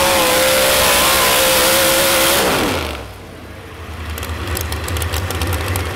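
Modified 4x4 pulling truck's supercharged V8 running flat out under load as it drags the weight sled. About two and a half seconds in, the throttle is lifted and the engine note falls away at the end of the pull. It settles into a rough idle with rapid crackles.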